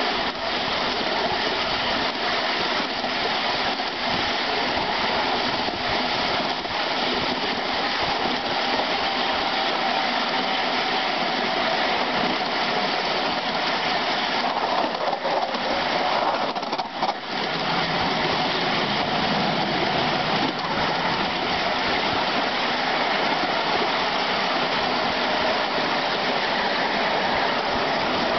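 Miniature coal-fired locomotive modelled on Turbomotive running along a ground-level miniature railway, heard from the truck behind its tender: a steady rushing of the running locomotive and wheels on the rails, with no distinct exhaust beats and a faint whine that drifts in pitch.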